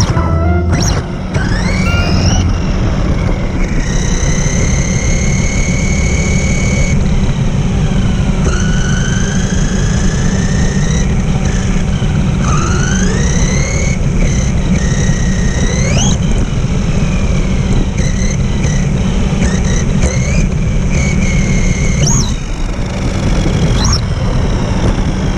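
Electric motor of a radio-controlled car whining, its pitch rising and falling as it speeds up and slows, with several sharp upward sweeps on hard acceleration, over a steady rumble of its tyres rolling on pavement.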